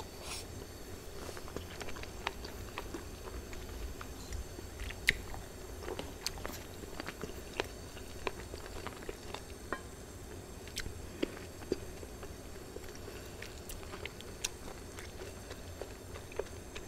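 Close-miked chewing and eating of shabu-shabu: wet mouth sounds with many scattered sharp clicks, some from metal tongs and chopsticks against the hot pot, over a steady low hum.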